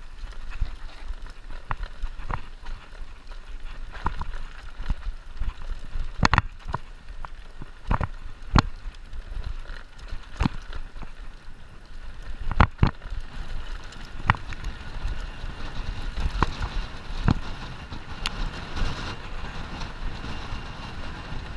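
Mountain bike riding fast down a rough dirt trail: tyres rumbling over the ground, with sharp knocks and rattles from the bike every second or two as it hits bumps.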